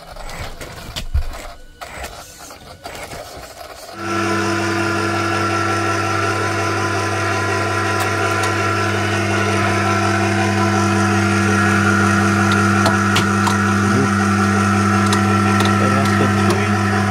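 Electric cable hoist starting about four seconds in and running with a steady, even hum as it winches a loaded platform up a wall. Before it starts there are a few soft knocks and rustles.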